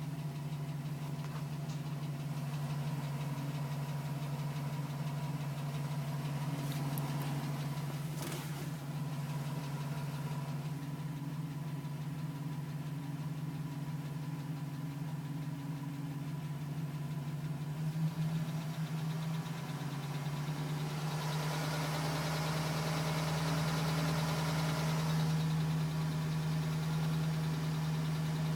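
2010 GMC Sierra pickup engine idling steadily with a tapping from the engine, which the owner suspects is piston slap.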